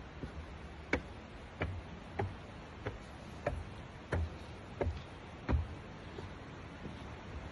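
Footsteps: about eight sharp steps at an even walking pace, roughly two-thirds of a second apart, over a steady low background noise.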